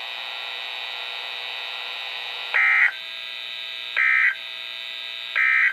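Emergency Alert System end-of-message signal: three short bursts of digital data tones, the EAS EOM code, each about a third of a second long and roughly 1.4 s apart, the first about two and a half seconds in. Under them runs a steady buzzing hum.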